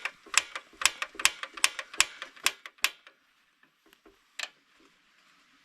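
Flint striker being struck over and over to light a camp cooker, sharp clicks about two or three a second for three seconds, then one more strike after a pause; the flame does not catch.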